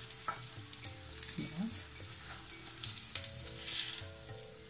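Potato patties frying in hot oil in a nonstick pan, a steady sizzle, with occasional clicks and scrapes of a silicone spatula and fork against the pan as the patties are lifted out.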